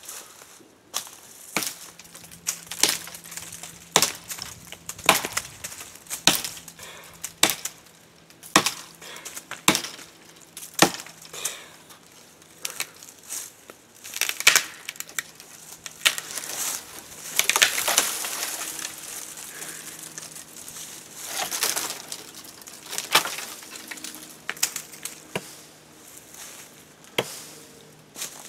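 Chopping saplings and brush with a hand tool: sharp strikes on wood roughly once a second, then longer stretches of crackling, rustling brush and breaking branches in the second half, with a few more strikes.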